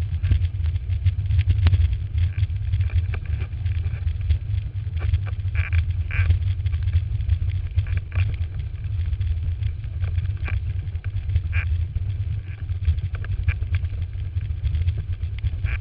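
Wind buffeting a boom-mounted action camera's microphone with a constant heavy low rumble, over the hiss and irregular slaps of water spray and chop against a windsurf board planing at speed.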